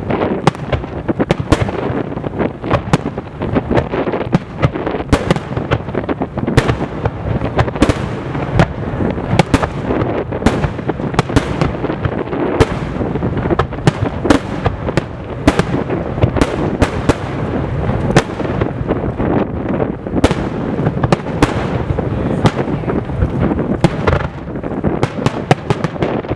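A rapid barrage of large aerial firework shells (shakudama) bursting, sharp bangs several a second over a continuous rumbling boom.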